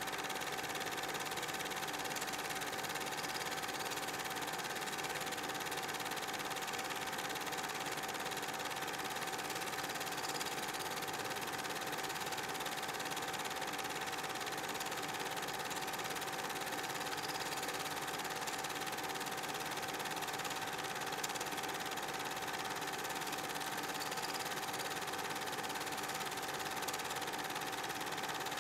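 Super 8 film projector running: a steady mechanical whirr and clatter with a constant hum.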